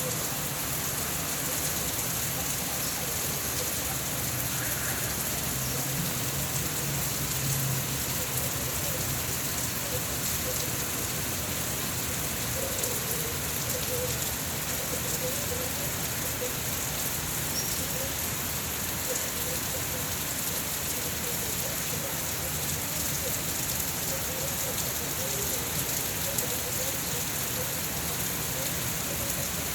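Steady rain falling and pattering on surfaces outside a window, an even hiss without pauses.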